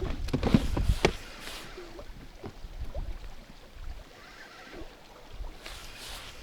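Knocks and clatter in a small fishing boat, several sharp knocks close together in the first second, then quieter rustling with a couple of short hisses.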